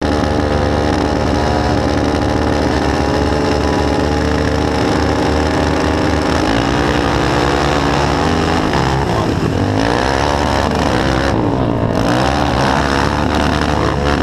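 Racing ATV's engine at high revs, heard from on board the quad: it holds a steady pitch for about the first six seconds, then rises and falls repeatedly as the throttle is worked.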